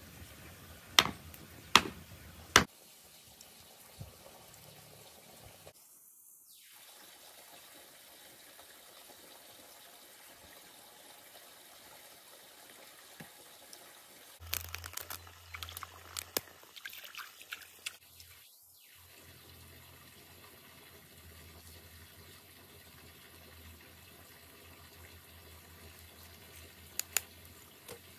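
A faint steady background like trickling water. Three sharp knocks come about a second apart near the start, a scatter of small clicks and taps comes in the middle, and two more clicks come near the end.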